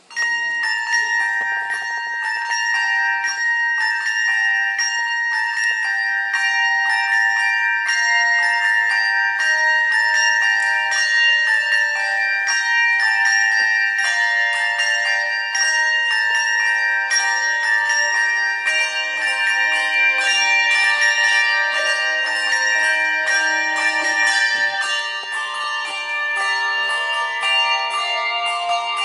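Handbell choir ringing a piece on tuned brass handbells: many bells struck in a melody with chords, each tone ringing on after it is struck. The playing starts suddenly, and lower bells join about halfway through.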